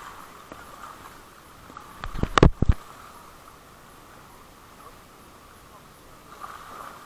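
Light spinning rod and reel handled just after a cast: a quick cluster of sharp clicks and knocks about two seconds in, over a steady faint high-pitched hum.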